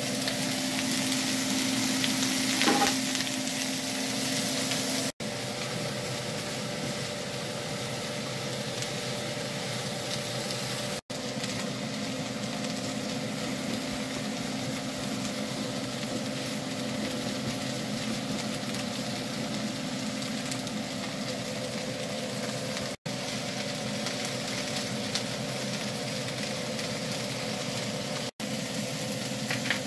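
Sliced onions sizzling as they fry in butter in a skillet, with a spatula stirring them now and then, over a steady low hum. The sound breaks off for an instant four times.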